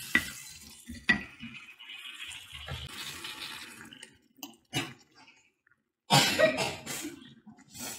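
Wooden spoon stirring a thick sambal in a ceramic casserole dish, knocking sharply against the dish twice, then water poured in from a bowl. A loud cluster of clinks and knocks follows near the end.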